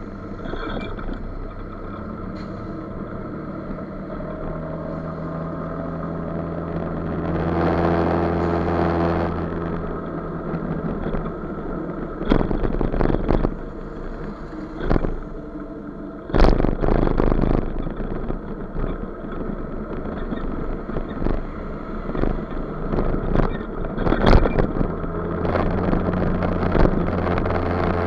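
Motor scooter engine droning steadily while riding along, growing louder around eight seconds in. Gusts of wind noise and knocks hit the microphone through the middle and later part.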